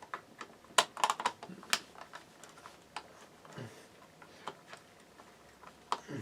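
Irregular small clicks and taps of hard parts being handled, a quick run of them about a second in and then scattered single clicks. This is the handling of wiring, screws and terminals on a fire alarm device being wired up. The horn is not sounding.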